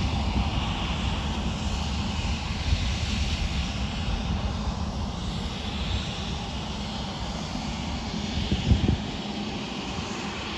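Three-engined business jet's turbofan engines running as the jet rolls along the runway: a steady jet whine that swells and fades in pitch colour, over an uneven low rumble.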